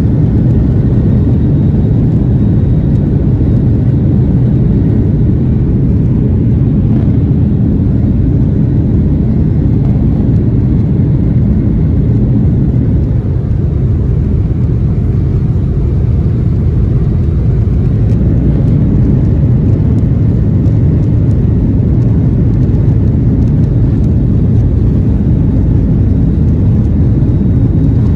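Steady, loud cabin rumble of a Boeing 737-800 on its takeoff run, heard from a seat over the wing: CFM56 jet engines at power and the wheels rolling on the runway.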